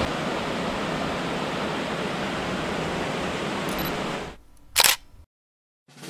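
Waterfall rushing steadily, fading out after about four seconds. Near the end comes a single sharp click like a camera shutter, then a moment of silence.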